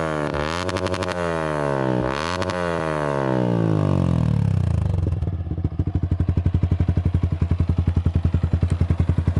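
Yamaha Sniper 155 VVA's single-cylinder engine breathing through a Villain GP1 non-carbon exhaust canister, revved in several quick blips. After about three seconds the revs fall away and settle into a steady, pulsing idle.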